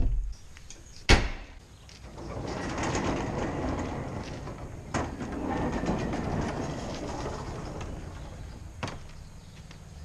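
Large wooden shed doors being pushed shut: a long scraping rumble with a couple of light knocks as they close, after a sharp knock about a second in.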